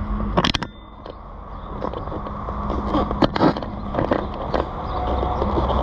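Motorcycle running, with a steady hum and wind and road noise. About half a second in there is a short clatter, after which the noise drops and builds back up over the next couple of seconds.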